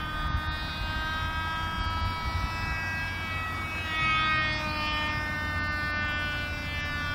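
Tiny Cox Tee Dee .020 two-stroke glow engine on a model biplane in flight, a steady high-pitched buzz that gets louder and drops slightly in pitch about four seconds in as the plane passes.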